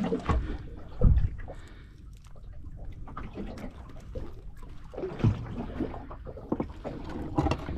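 Water trickling and slapping against the hull of a small boat at rest on the sea, with a sharp knock about a second in and scattered clicks and knocks from fishing gear being handled.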